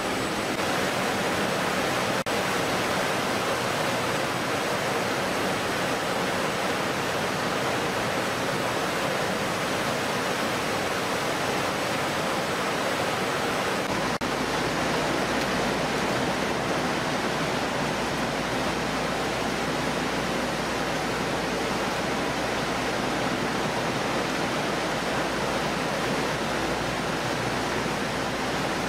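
Steady rushing noise of water sprays and conveyor machinery on a fish-processing line, with a low rumble joining about halfway through.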